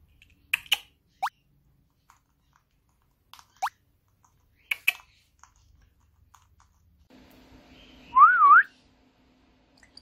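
Young Jardine's parrot making its water-drop 'ppyong' sounds: sharp beak clicks and quick rising whistles, twice in the first four seconds, then a louder wavering whistle near the end.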